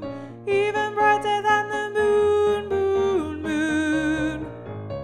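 Closing bars of an SATB choral arrangement, with the alto line sung in long held notes over piano accompaniment. It quietens near the end.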